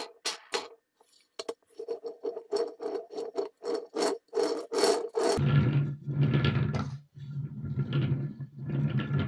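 Wooden toy truck being handled on a table: sharp clicks and knocks of wood on wood and tabletop. Then, from about five seconds in, its wooden wheels roll back and forth across the table in repeated rumbling pushes, each about a second and a half long.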